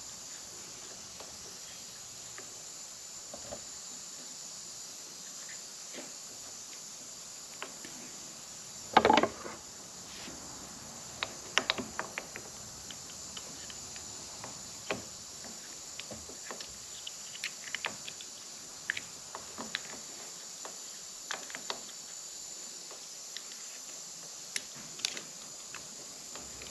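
Scattered small clicks, taps and scrapes of a punch and fingers working a new rubber boot onto a motorcycle's front brake lever, over a steady high hiss. The loudest is a short scraping rustle about nine seconds in, with a quick run of clicks a few seconds later.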